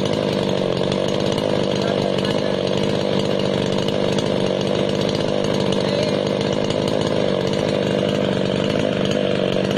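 52cc Stihl two-stroke chainsaw with a 20-inch guide bar running steadily under load, its chain cutting through a log.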